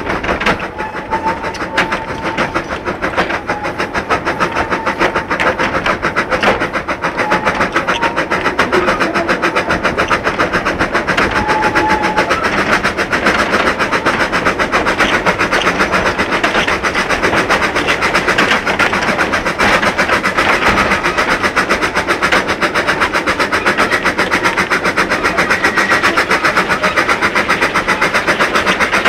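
Hunslet 0-4-0 saddle-tank steam locomotive Britomart working a train of slate wagons, heard from the wagons right behind it: fast, even exhaust beats with the clatter of the wagon wheels on the rails. A thin, intermittent squeal comes and goes in the first dozen seconds.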